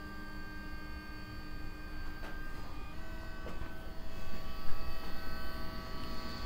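Stepper motors of a Shapeoko 3 XXL CNC router whining steadily as the gantry and spindle carriage are jogged across the machine bed. The pitch of the whine shifts to a new set of tones about three seconds in.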